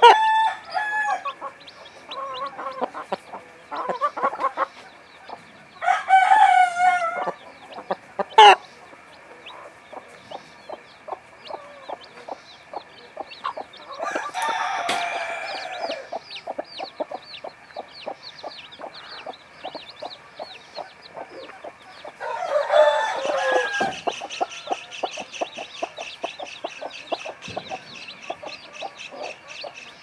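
Leghorn hen clucking while her chicks peep almost without a break. A few louder, drawn-out chicken calls break in, about six, fourteen and twenty-three seconds in.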